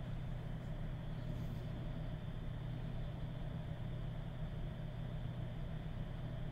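Steady low hum with a faint hiss over it: constant background noise with no events.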